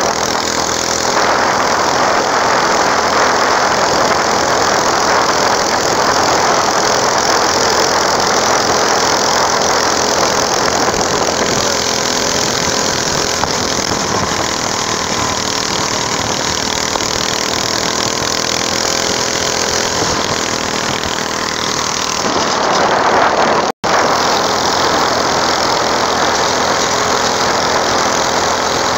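Small engine of a homemade go-kart running as the kart drives along, a steady loud drone whose pitch shifts as it speeds up and slows. The sound swells about 22 seconds in, then cuts out for an instant.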